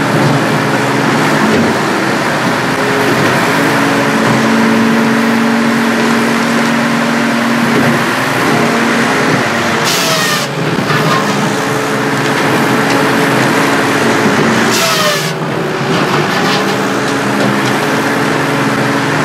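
Circle-saw firewood processor running with a steady mechanical drone. Its circular saw blade cuts through a log twice, about ten and fifteen seconds in, each cut a brief loud hiss with a falling whine as the blade takes the load.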